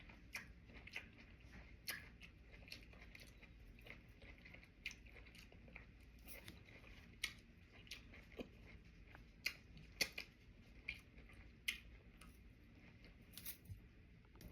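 Faint close-up chewing of cucumber sushi boats with salmon: irregular small mouth clicks, about one or two a second.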